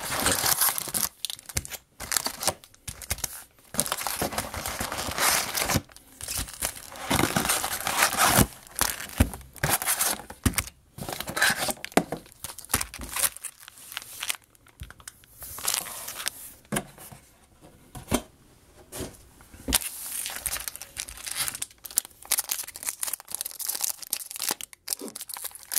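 Foil-wrapped trading-card packs and their cardboard box being handled and torn open by hand: irregular tearing and crinkling of wrapper with a few short pauses.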